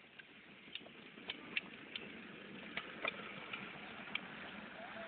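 Small plastic kids' ride-on toy car rolling over wet pavement: a faint hiss of the wheels that slowly grows louder, with irregular clicks and rattles.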